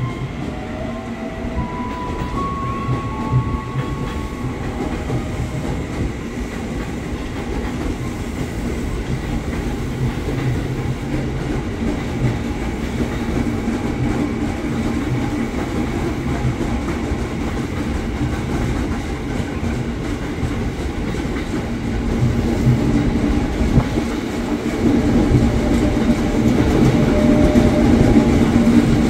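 KRL Commuter Line electric multiple unit running on the tracks: a steady wheel-on-rail rumble with clickety-clack over the rail joints, getting louder in the last few seconds. In the first few seconds a whine shifts pitch in steps.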